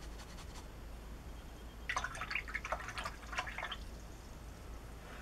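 Watercolour brush rinsed in a cup of water: a quick run of small splashes and clinks against the cup for about two seconds, starting about two seconds in, after a few faint brush strokes on paper.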